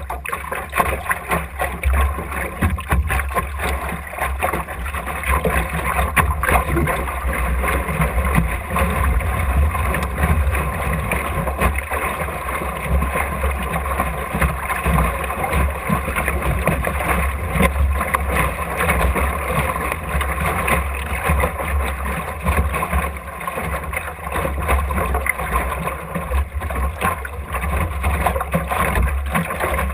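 Optimist sailing dinghy moving through choppy water: water splashing and slapping against the hull, with a steady rumble of wind buffeting the camera microphone.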